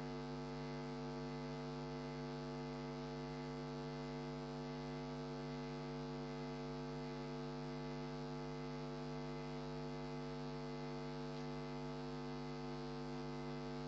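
Steady electrical hum, a stack of even unchanging tones with light hiss, with no other sound over it.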